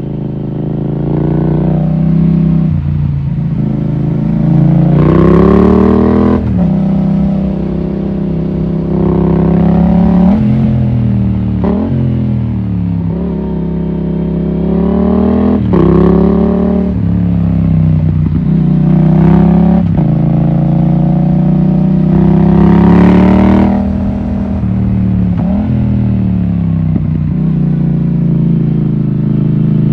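Yamaha MT-07's parallel-twin engine pulling hard and repeatedly: the pitch climbs under throttle, then drops sharply at gear changes or when the throttle closes, about six times, as the bike runs up and down through the revs.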